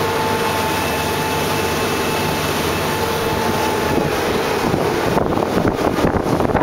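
Wind rushing over the microphone on the deck of a sailing catamaran under way, gustier and choppier from about five seconds in, with a faint steady hum underneath.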